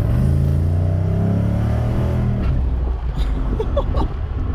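5.3-litre LS V8 in a Mercedes 300D, heard from inside the cabin, rising steadily in pitch under acceleration, then dropping about two and a half seconds in as the automatic makes a firm upshift.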